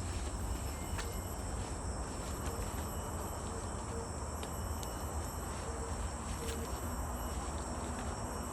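Steady high-pitched drone of forest insects, over a low rumble and a few faint ticks.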